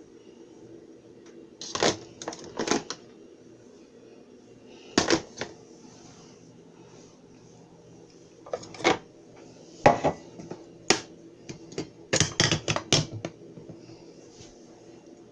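Sharp clicks and clacks of hard objects being handled or set down, in five short clusters over a low steady hum.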